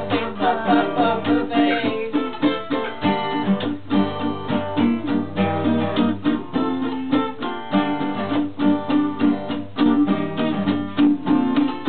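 Two guitars, an archtop and an acoustic, played together: steady strummed chords with picked melody notes over them.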